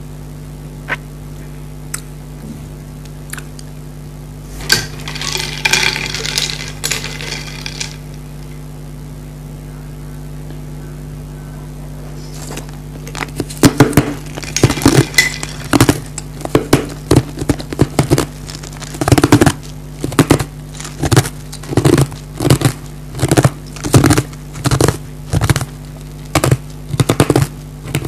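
Close-miked slurping of orange Fanta through a straw, then ice cubes being crunched between the teeth: a long run of sharp, crisp crunches, about two a second, through the second half. A steady low electrical hum lies underneath.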